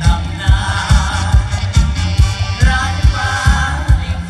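Mor lam band music played loud over a big concert sound system, with a heavy bass drum beating about two or three times a second and a singer's voice over it.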